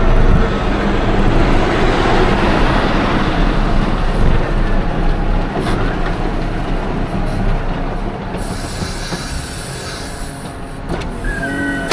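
Heavy farm machinery running, a loud steady noise that eases somewhat in the last few seconds.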